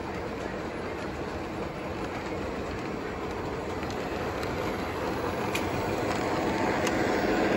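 Lionel LionChief O-gauge model diesel locomotive running on track: a steady rumble of its motor and wheels that grows louder as it comes close, with a few light clicks.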